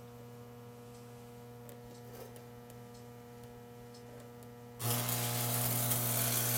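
Steady electrical hum, then about five seconds in a stick-welding arc is struck on steel and burns for about two seconds: a loud, even arc noise as the lower plate of the forge shell is tack welded.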